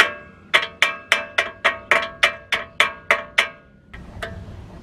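Hammer striking steel, metal on metal, rapidly tapping out a stuck pad retaining pin in a car's front brake caliper. About a dozen ringing strikes come at three or four a second and stop a little before the end. It is the pin, soaked in WD-40, being knocked back and forth to loosen it.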